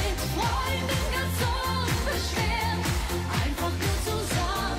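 German pop song: a woman singing lead over a band backing with a steady dance beat.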